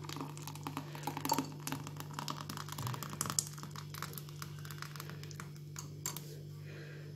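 Thick pumpkin flan mixture pouring from a saucepan into a cut-glass bowl with a metal spoon standing in it: a run of small, soft clicks and patters, busiest in the first few seconds and thinning out after. A steady low hum sits underneath.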